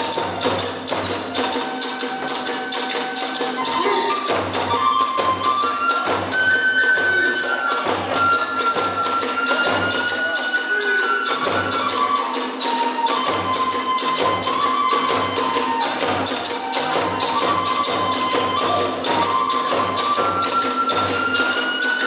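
Kagura hayashi music: a bamboo transverse flute (fue) plays a stepping melody over a fast, steady beat of taiko drums and small hand cymbals (tebiragane).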